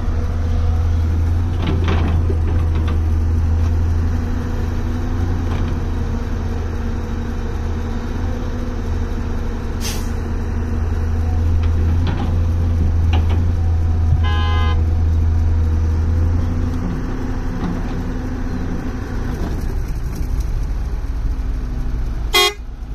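Volvo 170 excavator's diesel engine running steadily under load, its low drone easing off about three-quarters of the way through. Scattered knocks, a brief high tone about two-thirds through, and a sharp loud clank near the end.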